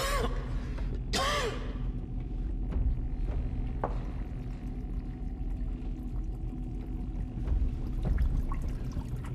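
Low steady rumble with a faint hum over it, and a short, sharp breath about a second in.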